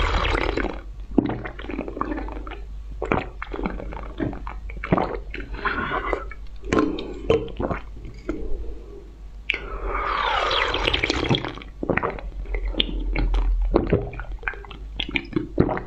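Wet slurping and sucking as the coloured contents are drawn out of glass test tubes, with squishy mouth sounds and sharp clicks of the glass tubes. Two longer slurps come a little past the middle and near the end.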